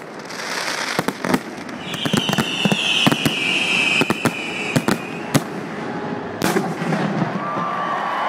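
Fireworks display at close range: rapid shell bursts and sharp bangs over a constant crackle. A shrill whistling firework falls slightly in pitch about two seconds in, and one big bang comes near the end.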